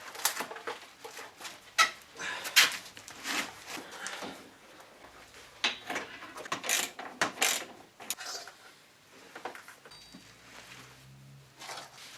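Irregular knocks, clunks and scraping as parts are handled and set down on a workbench; no engine is running.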